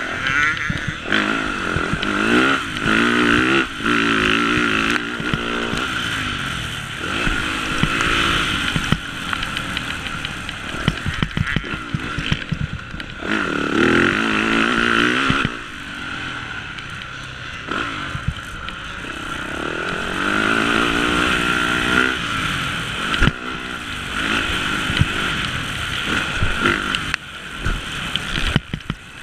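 Motocross dirt bike engine revving hard and backing off again and again as it is ridden, its pitch rising through the gears several times, with frequent short knocks and rattles from the bike over the ruts.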